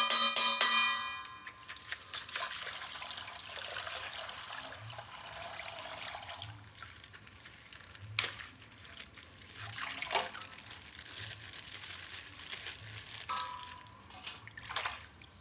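Plastic packaging crinkling and rustling as a toy is unwrapped, with a few sharp clicks later on. A short musical tone fades out in the first second.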